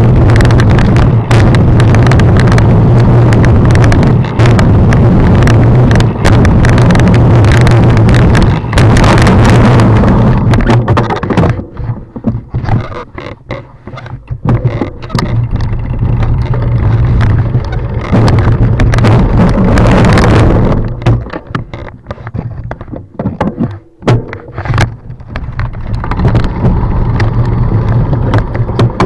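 Mountain bike rattling and clattering over a rough downhill singletrail, with heavy wind rumble on the microphone and a steady stream of sharp knocks from the bike. It eases off twice, for a few seconds around the middle and again later on.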